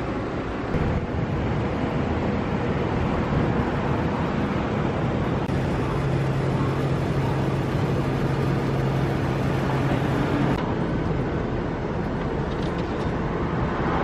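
Steady street traffic noise. A low engine hum runs under it for several seconds in the middle and cuts off suddenly.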